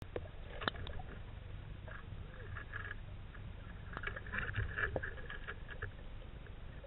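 Muffled clicks and knocks of handling picked up by a camera mounted on a roller speargun as it goes underwater in a pool, over a low steady rumble.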